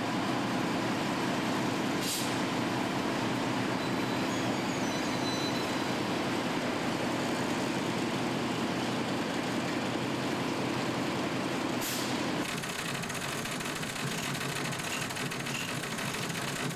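DAF 95 lorry's diesel engine running steadily as the tractor unit pulls the heavy low-loader slowly. There are two short sharp air hisses, about two seconds in and again near twelve seconds. After that the engine note drops to a lower, quieter running.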